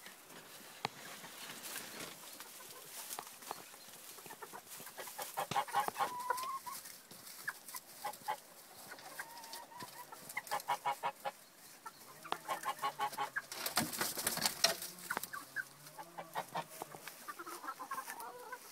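Dutch bantam chickens clucking in quick runs of short calls, starting a few seconds in and repeating several times, with a louder noisy burst about three-quarters of the way through.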